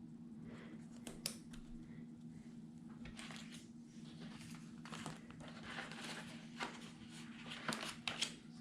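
Faint rustling and crinkling of scrapbook paper being handled and slid into place, with a few sharp ticks and taps, most of them in the second half. A steady low hum runs underneath.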